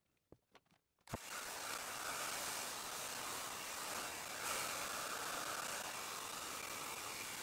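A handheld hair dryer switched on about a second in, running with a steady loud hiss as it blows over wet black paint.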